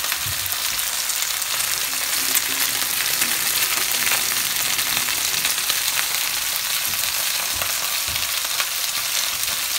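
Two raw bone-in pork chops searing on their first side in hot oil in a frying pan: a steady sizzling hiss, peppered with many small crackles and pops.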